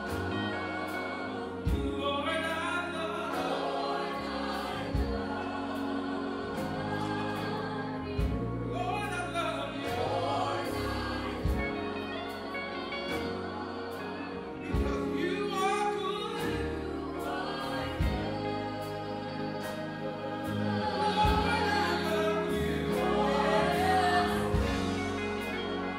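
Live gospel worship song: singing voices and a choir over instrumental accompaniment with a steady beat.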